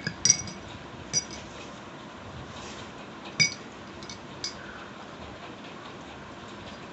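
A spoon clinking against a drinking tumbler while stirring a drink: four separate clinks, the loudest a little over three seconds in, the last one faint.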